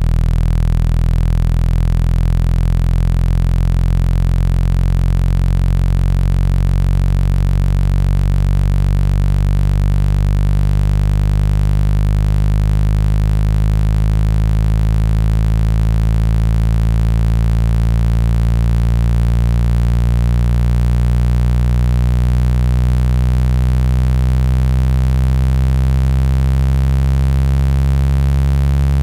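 Synthetic low-pitched water-eject tone for clearing water from a phone loudspeaker: a loud, steady buzzing hum with many overtones, rising slowly in pitch.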